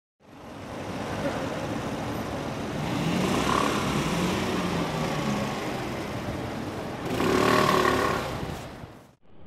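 Vehicle engine and street traffic noise, with an engine note rising and falling in the middle and a louder stretch near the end. It cuts off abruptly just before the end.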